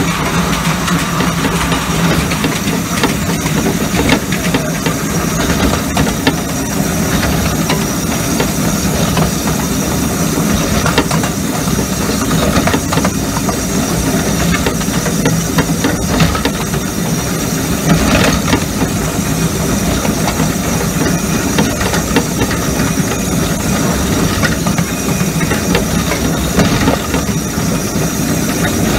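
A 7¼-inch gauge miniature steam locomotive running along the line: a steady hiss of steam over a dense low running noise, with occasional clicks from the wheels on the rail.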